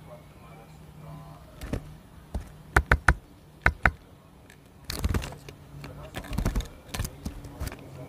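Great tit pecking at a bird feeder: irregular sharp taps of its beak, some in quick runs of two or three, over a faint low hum.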